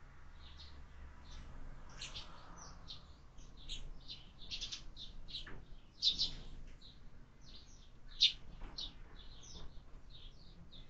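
Sparrows chirping, many short high chirps in quick, irregular succession, with a few louder ones about six and eight seconds in.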